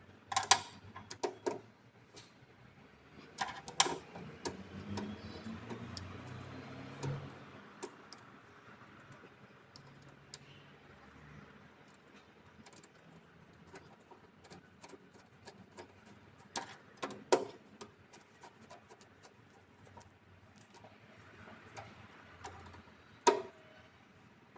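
Scattered light clicks and taps of hand tools and a cable end being worked into a hybrid inverter's AC output terminal, with a few louder knocks spread through.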